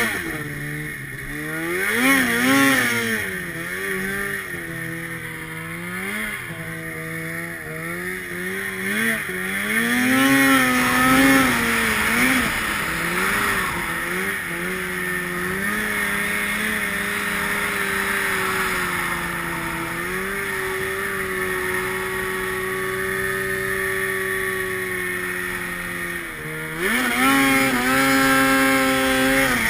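Arctic Cat snowmobile engine running under way. Its pitch rises and falls with the throttle through the first dozen seconds, then holds one steady note for about ten seconds, and climbs sharply again near the end.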